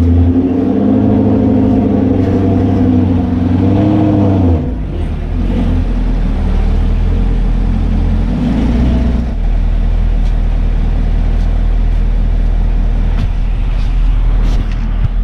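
Chevrolet Camaro SS's 6.2-litre V8 running, the revs rising and falling for the first four or five seconds as the car is manoeuvred, then dropping to a steady low idle.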